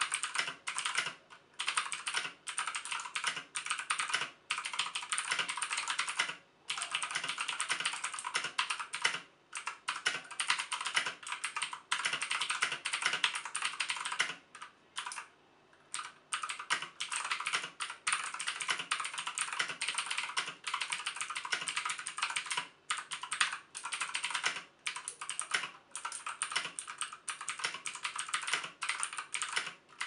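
Steady fast typing on a Unicomp UltraClassic buckling-spring keyboard: a dense clatter of key clicks broken by a few brief pauses, the longest about fifteen seconds in.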